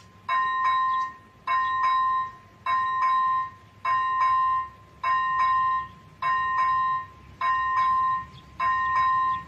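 ZV-01 electronic bell of an AŽD 71 level-crossing signal ringing in even repeating bursts, about one every 1.2 seconds, warning that a train is approaching. A low rumble builds underneath in the second half.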